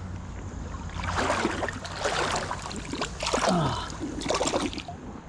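Fast-running creek water splashing and trickling in irregular bursts, over a steady low rush.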